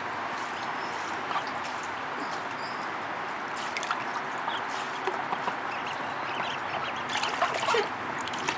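Water trickling and splashing as a Pekin duck and her ducklings swim and dive in a shallow plastic kiddie pool. A few short duck calls sound near the end.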